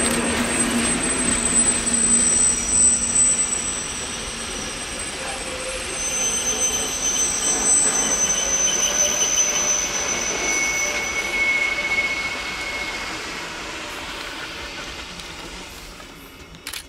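Metre-gauge Glacier Express coaches rolling past, their wheels squealing in several steady high tones that come and go. The noise fades away as the last car goes by.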